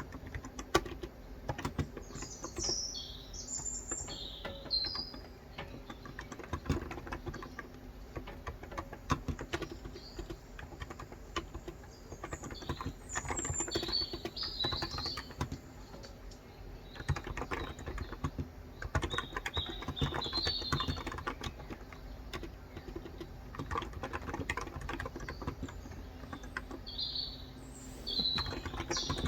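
Continuous typing on a Cox Endeavor electrostatic capacitive (Topre-style, 35 g) tenkeyless keyboard, a dense run of keystrokes. Birds chirp in the background in about four short spells.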